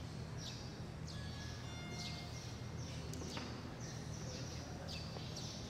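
Small birds chirping over and over, each chirp a quick downward sweep, with a few brief whistled notes, over a steady low hum.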